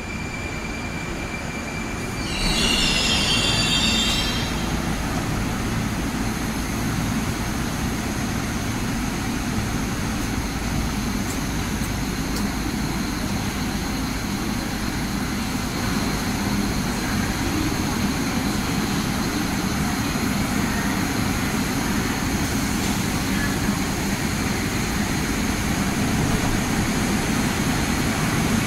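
Moscow metro train braking into an underground station, with a brief high-pitched squeal of wheels and brakes about two seconds in as it stops. Then a steady rumble and hum of the standing train and station.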